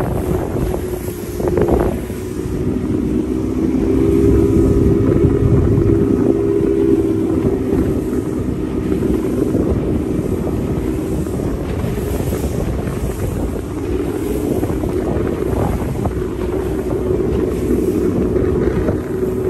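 Motorboat engine running steadily under way, with wind buffeting the microphone.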